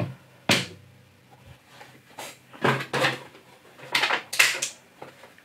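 A few brief, separate clicks and knocks from handling a plastic action figure and its packaging, the sharpest about half a second in.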